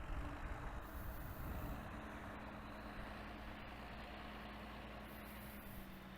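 Tractor engine running steadily, a faint even hum.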